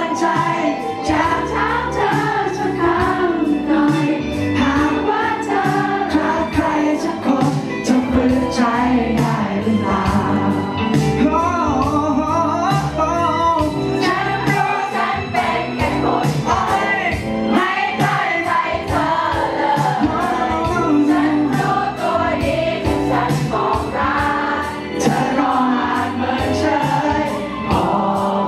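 Male pop singer singing live into a handheld microphone over instrumental accompaniment with a steady beat.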